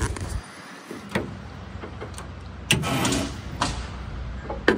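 A few short knocks and a brief stretch of clatter from things being handled around a car's open hood and engine bay. The engine is not running.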